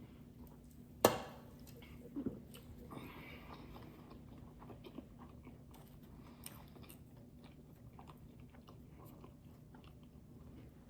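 A person eating a breakfast sandwich and fries close to the microphone: one loud sharp crunch about a second in, a smaller one a second later, then steady chewing with many small clicks.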